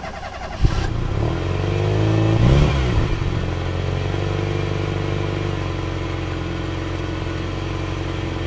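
Volvo V60 car engine running as the car pulls away, its pitch rising briefly about two seconds in and then holding steady. A short knock comes just after the start.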